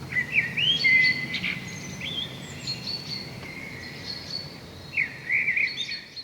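Seabirds calling by the ocean: short chirps that rise and fall in pitch, coming in bunches, loudest about a second in and again near the end. A low, steady wash of surf runs underneath.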